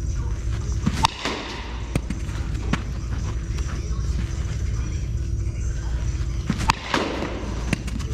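Two sharp smacks of a baseball striking, one about a second in and another near seven seconds, each followed by a brief rustle, over a steady low rumble.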